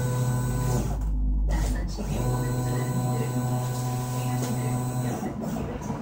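Stepper motors of a DIY aluminium-extrusion CNC machine moving the gantry under computer control, giving a steady multi-pitched hum. The hum stops about a second in, starts again about a second later, and stops again near the end.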